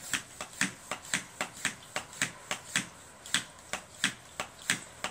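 Roarockit hand vacuum pump being worked in quick strokes, a short sharp click with each stroke, about three a second. The veneer bag is nearly evacuated and the pump is getting more difficult to draw air with.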